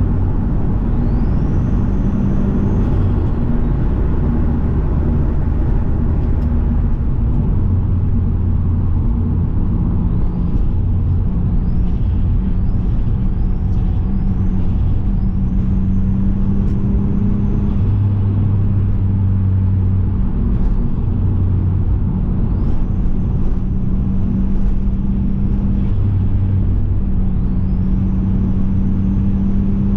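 Turbocharged Subaru EZ30 3.0-litre flat-six running steadily under way, a low drone whose pitch shifts with the revs. Over it a high whistle rises and then holds, over and over: the turbo spooling up, with a quick run of short rises around the middle.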